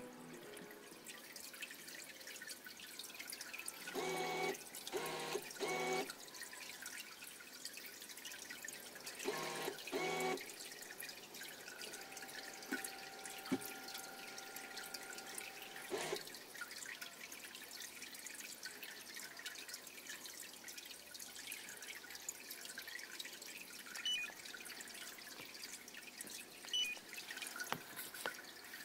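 Harbour water lapping and dripping against a pier, a steady fine trickling and plopping. Three short pitched calls come about four seconds in and two more about ten seconds in, and two faint steady tones hold for a few seconds in the middle.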